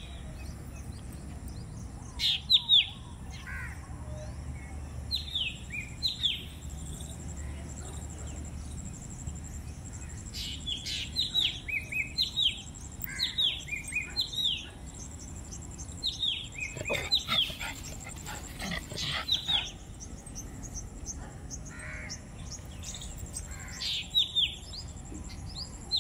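Birds calling over and over outdoors, short falling calls, often two in quick succession, over a faint steady high trill. About two-thirds of the way through comes a short spell of rustling and clinking.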